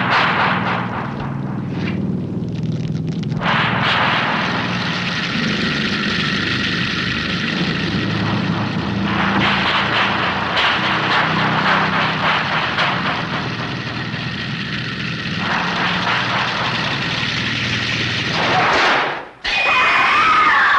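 Chainsaw engine running continuously, its pitch stepping up and down as it is revved.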